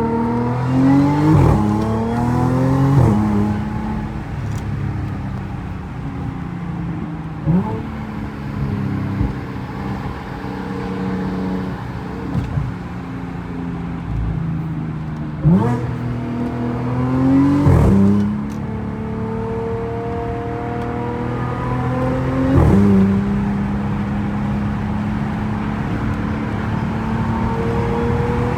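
Audi A3 (8P) engine running, with about six quick revs that sweep up and drop back between stretches of steady running.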